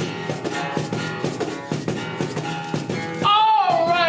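Music with a steady drum and percussion beat under held chords; a singing voice comes in loudly about three seconds in.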